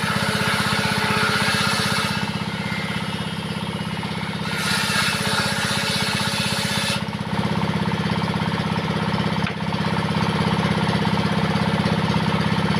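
Single-cylinder-style diesel engine driving a home-built table saw runs steadily with a rapid chugging beat. A saw blade rips through wood twice, once near the start and again midway, after which the engine runs on alone.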